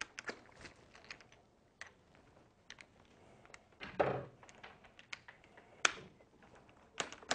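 Small scattered clicks and taps of a plastic throttle housing and cam being handled and fitted together by hand, with a brief soft rustle about four seconds in.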